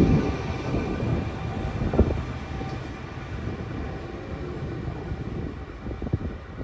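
Train rumbling past and moving away, its sound fading steadily, with a sharp knock about two seconds in and a few clicks near the end.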